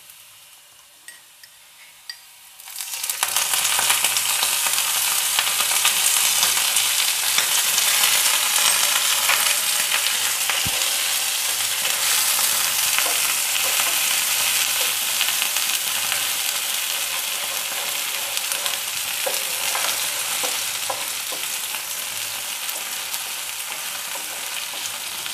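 Water poured into hot oil with fried garlic, ginger, green chilli and curry leaves in a non-stick frying pan: a sudden loud sizzle starts about three seconds in and slowly dies down as a wooden spatula stirs. Before it, only faint stirring clicks.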